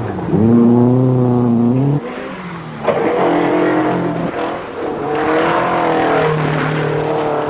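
Saab 96 rally car's Ford V4 engine running hard under load, its revs rising and falling. The pitch drops sharply about two seconds in, then climbs again a second later.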